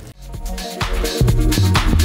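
Background music with a steady beat, swelling up over the first second.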